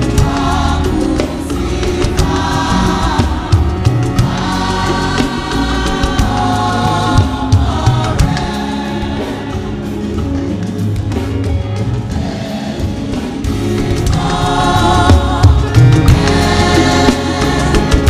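Church choir singing a Yoruba hymn over a steady low instrumental accompaniment, the sung phrases swelling and fading every few seconds.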